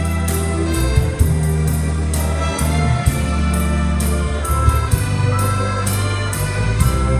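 Orchestra playing an instrumental passage with no singing: cellos and other instruments hold sustained notes over deep bass, with a steady beat of light percussion ticks.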